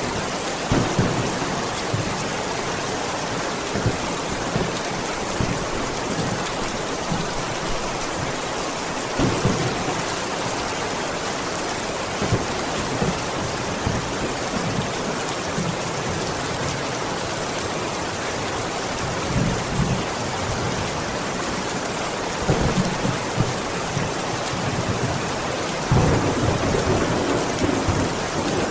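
Heavy rain falling steadily, with low rumbles of thunder swelling and fading several times; the longest and loudest rumble comes near the end.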